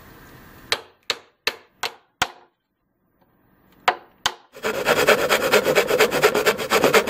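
A hammer striking a chisel into a plywood sheet: five sharp blows about a third of a second apart, a short pause, then two more. From about four and a half seconds in, a handsaw cuts the plywood with rapid rasping strokes.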